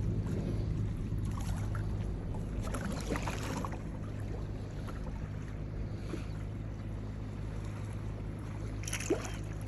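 A steady, low motor hum.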